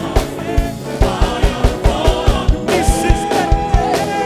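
Live gospel praise music: a band playing a steady drum beat under singers, with one long held note from about three seconds in.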